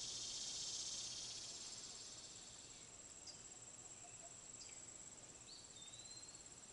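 Faint outdoor chorus of insects, a high-pitched shrill hum that is louder for the first second and then fades to a thin steady trill. A few short high chirps come through in the second half.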